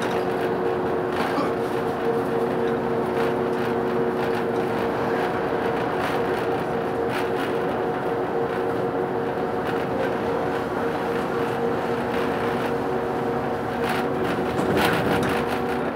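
Ikarus 280 diesel bus driving, heard from inside the passenger cabin: a steady engine hum with a few held tones over road and rattle noise. A brief louder burst of noise comes near the end.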